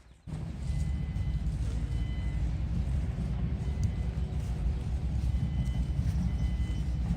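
A loud, steady low rumble starts suddenly about a third of a second in and carries on unbroken, with faint short high tones coming and going above it.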